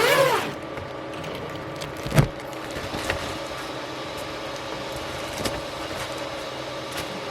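3D printer after its finished print: the stepper motors whir through a quick move at the start, then the fans and motors hum steadily with a faint whine. A single knock about two seconds in, then a few light clicks.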